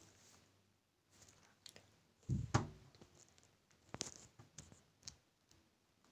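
A few faint clicks and taps, with one louder knock about two and a half seconds in.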